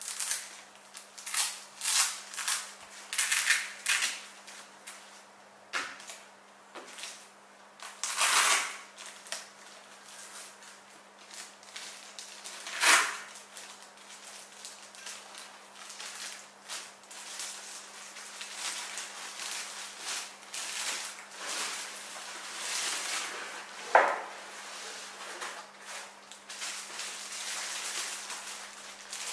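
Snow Peak IGT Slim table being unpacked by hand: the fabric carry bag's strap and flap undone, then the plastic wrap around the metal table frame crinkling. A string of sharp rustles and clicks, with three louder bursts spread through it and denser, steadier rustling in the second half.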